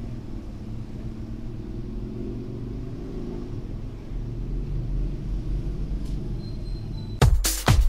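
A steady low rumble, then about seven seconds in a loud electronic dance track with a pounding beat starts abruptly.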